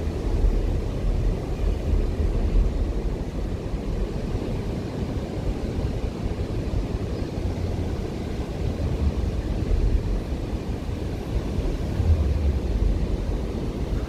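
Wind buffeting the microphone in uneven low gusts over the steady wash of ocean surf on a beach.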